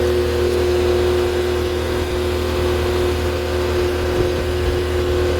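Skid steer loader engine running steadily with a constant low hum and a steady whine while the machine drives forward slowly.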